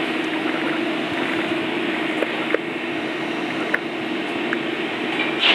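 Steady rushing of kitchen ventilation with a constant hum, and a few faint light clicks of knives and utensils on a plastic cutting board.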